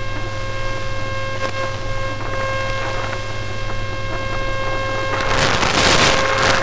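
Steady hum with a fixed buzzing tone and its overtones, unchanging in pitch; about five seconds in, a rush of hiss swells up and fades.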